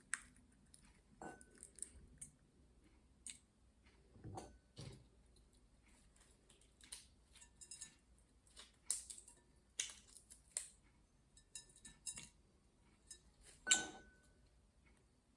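Walnut shells and pieces handled at a table by a green-cheeked conure: irregular small clicks and taps, with a few louder knocks.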